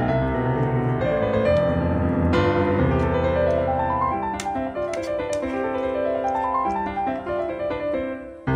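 Background piano music, with runs of notes climbing and then falling back twice, and a brief break just before the end.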